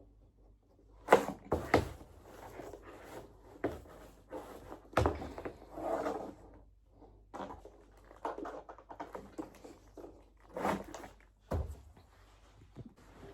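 Tripod and ring light parts being handled and fitted together: scattered sharp knocks and clicks with rustling handling noise, the loudest knocks about a second in and again near the end.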